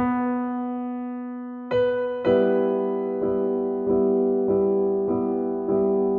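Background piano music: a slow melody that holds one long note, then plays a new note roughly every half-second or so.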